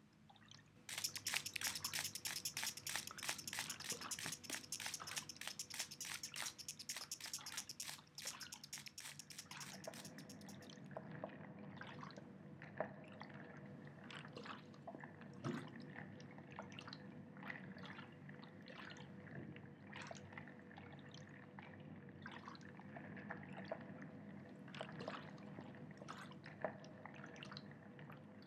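Bubbling and dripping water: a dense stream of fast clicks that stops about ten seconds in, then scattered drips and plops, over a faint steady hum.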